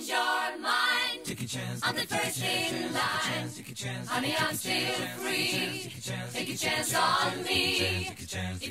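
Background music: an a cappella group singing in several voices, with a low sung bass part coming in about a second in.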